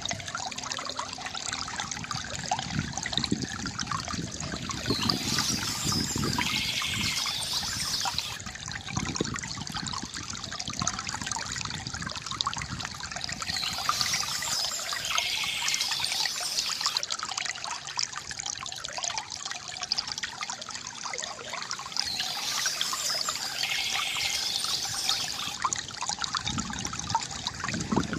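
Small stream trickling and splashing steadily, with three bursts of high bird song spaced about nine seconds apart.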